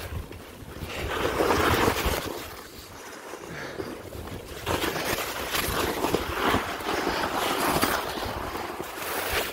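Skis or a board sliding and scraping over snow on a downhill run, the rushing noise swelling and easing with each turn, with wind buffeting the microphone.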